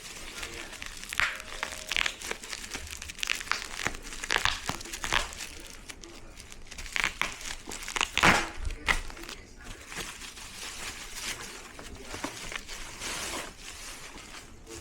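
Packaging being handled during an unboxing: plastic wrap and box material crinkling and rustling in irregular bursts throughout.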